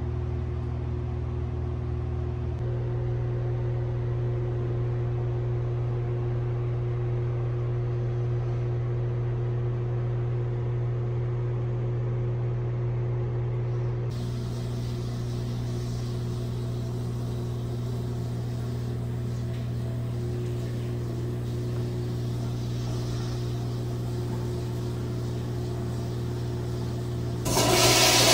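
A steady low drone with a few held tones, shifting twice. Near the end a wall-hung toilet flushes with a loud rush of water.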